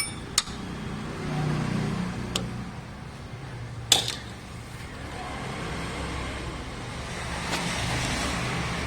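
Low, steady rumble of passing road traffic, with a few sharp clicks and knocks of hand tools on engine bolts, the loudest about four seconds in.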